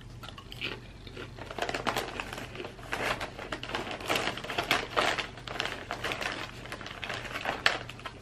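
Close-up crunching and chewing of honey butter potato chips, in dense irregular crackles, with the plastic chip bag crinkling as it is handled midway through.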